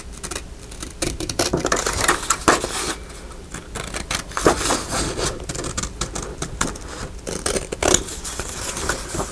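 Paper being handled and cut: irregular crisp scratching and rustling with short clicks and snips, busiest from about a second in to three seconds in, with louder moments near the middle and near the end.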